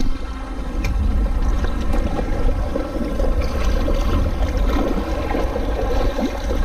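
Wind buffeting the microphone, with seawater washing and splashing against the breakwater boulders.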